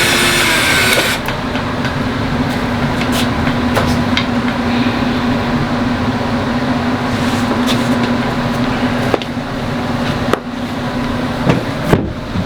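A power tool cutting PVC sheet runs at high speed and stops about a second in. A steady low hum follows, with scattered clicks and knocks from handling the PVC.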